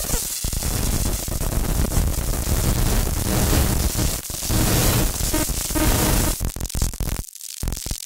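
Electronic noise music: a dense static-like hiss across the whole range, chopped by rapid clicks and stutters, cutting out briefly near the end.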